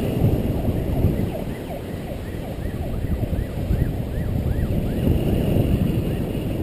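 Wind rushing over the microphone as a paraglider glides in low on final approach to land. A faint series of short chirps, about three a second, runs through the middle.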